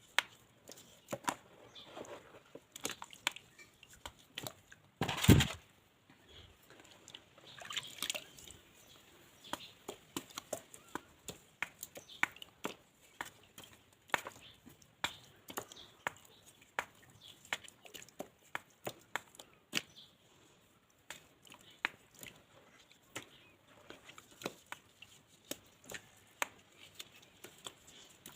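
Dried mud being crushed and crumbled: a run of irregular sharp cracks and crackles, with one much louder crunch about five seconds in.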